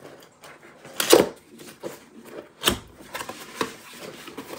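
A cardboard box being opened and its packaging handled: sharp cardboard knocks and snaps, the loudest about a second in and another near the middle, with lighter tapping and rustling between.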